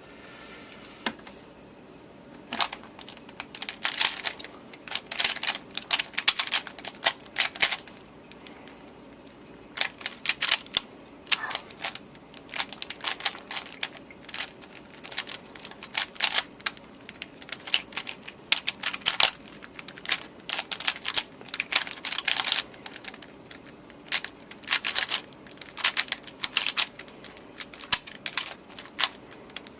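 A 3x3 Rubik's Cube being speed-solved by hand: its plastic layers are turned in rapid clattering bursts of clicks, broken by short pauses between sequences of moves.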